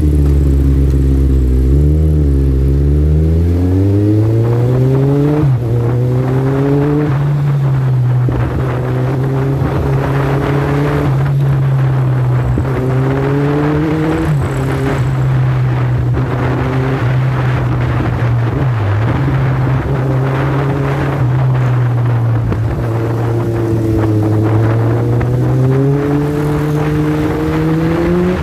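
Kawasaki Z1000 inline-four motorcycle engine heard from the rider's seat, rising in pitch as the bike accelerates through the gears over the first several seconds, with a gear change partway up. It then holds a steady cruise, dipping briefly a few times as the throttle eases.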